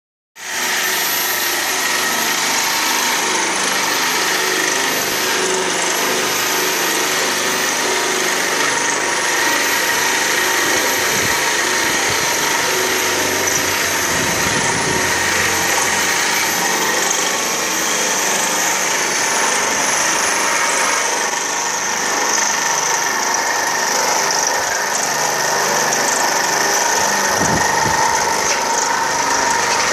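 Homemade well-drilling rig running steadily: an electric motor driving a gearbox that turns the drill pipe, a constant mechanical drone with a steady whine.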